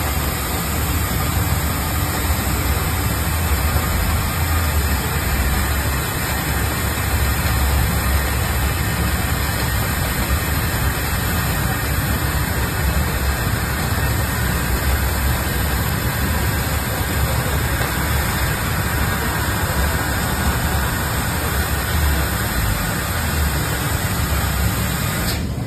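Fiber laser cutting machine running while it cuts a steel section: a steady hiss over a low rumble. The hiss drops away near the end.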